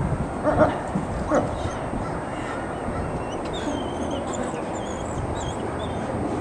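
Wolves giving a few short, sharp barks and yips in the first second and a half, in a squabble over a mouse, then steady background noise with faint high chirping.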